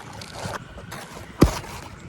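Low rustling wind noise, with one sharp knock about one and a half seconds in.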